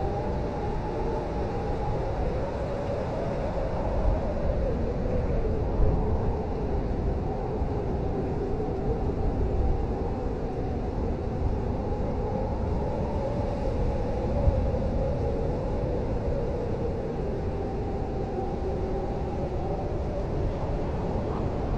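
Blizzard wind howling: a steady rush with a gusty low rumble and slowly wavering moaning tones, rising a little in gusts around 4, 6 and 14 seconds in.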